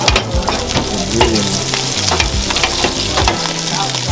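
Cornmeal-coated fish pieces sizzling as they fry in hot oil in a pan, with scattered sharp clicks and ticks from the spitting oil and the pan.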